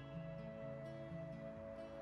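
Background music: a gentle instrumental with plucked guitar and held notes.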